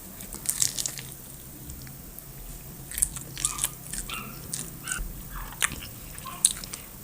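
A person biting and chewing crunchy food close to the microphone, in a burst of crunches about half a second in and more crunching from about three seconds on.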